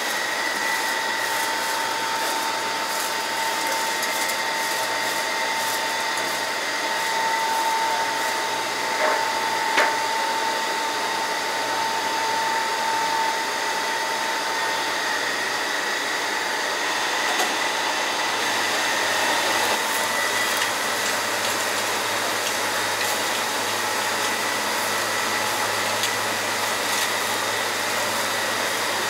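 Steady whirring of an electric fan running, with two light knocks about nine and ten seconds in.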